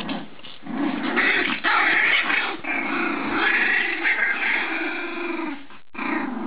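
A litter of boxer puppies whining and crying together, several overlapping cries almost without a break, which stop briefly near the end before starting again.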